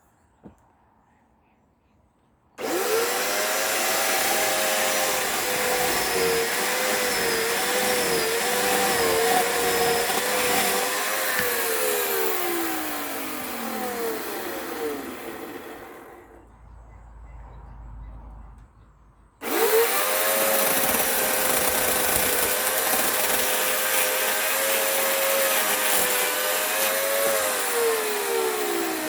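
A chainsaw cutting into a rough sapling: after a couple of seconds of quiet it comes in at full speed, its pitch wavering under load, then winds down. After a short lull it runs at full speed again and winds down once more near the end.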